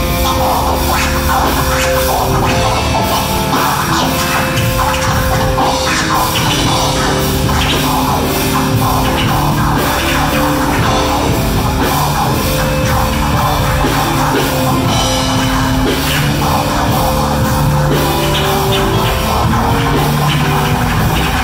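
Live band playing a loud rock jam on keyboard, electric guitar and drum kit, with sustained keyboard notes over a steady beat.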